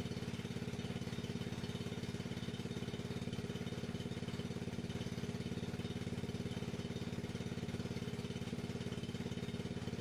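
Troy-Bilt TB30R riding mower's small gas engine running steadily with an even, rapid firing pulse.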